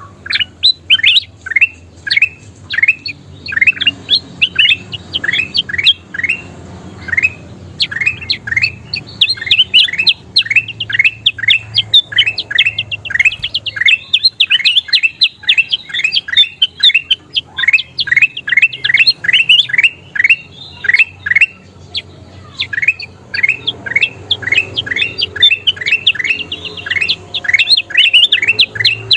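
Kutilang emas (ruby-throated bulbul) singing: a long, fast run of short whistled notes, each sweeping downward, two to five a second, broken by brief pauses. A faint low hum lies under it.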